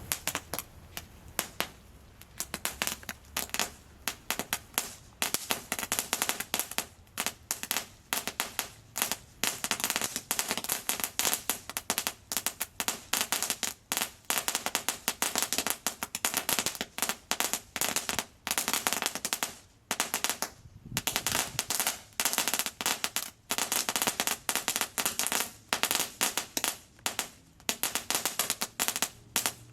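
Phantom Fireworks 90 Second Crackling Assault fountain going off: a dense, continuous rattle of rapid sharp pops from its crackling balls, with a brief lull about twenty seconds in.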